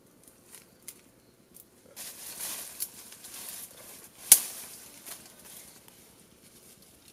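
Dry leaves and brush rustling as a man works at a bamboo-and-vine snare on the forest floor, with a sharp crack, like a twig or stick snapping, about four seconds in. A few light ticks come before the rustling starts.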